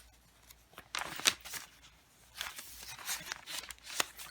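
Paper and fabric pages of a thick handmade junk journal being turned and handled, rustling and crinkling in two bouts, with a sharp tap about four seconds in.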